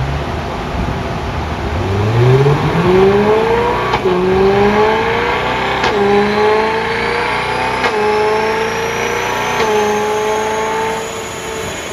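BMW E92 M3's V8 engine at full throttle on a chassis dynamometer, revving up through the gears: its pitch climbs, drops sharply at each of four upshifts about two seconds apart, and climbs again. A thin high whine rises steadily underneath, and the engine eases off near the end.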